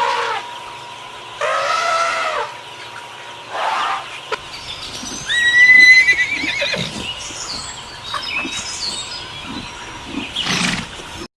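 Horse neighing several times. The loudest call is a high, quavering whinny about five to six seconds in.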